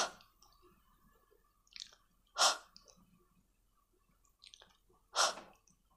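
A woman's voice making the voiceless /h/ sound of the letter H three times: short breathy puffs a few seconds apart.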